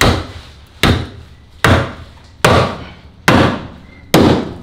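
Sledgehammer hitting the bare steel frame of a Subaru BRZ inside the wheel well: six heavy metal-on-metal strikes in a steady rhythm, a little under a second apart, each ringing briefly. The frame is being beaten flat to gain clearance so the car can sit lower.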